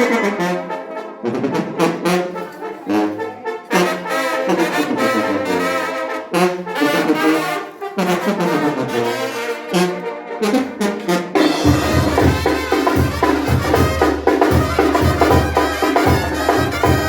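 Brass music with trumpets and trombones playing a melody; about twelve seconds in, a heavy steady drum beat comes in under it.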